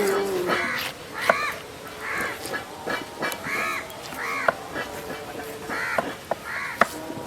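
A crow cawing over and over, about one short caw a second, with a few sharp knocks among the calls.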